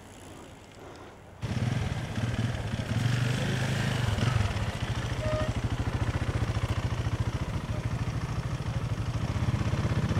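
A small engine running steadily with a fast, even pulse, starting abruptly about a second and a half in after a quiet stretch.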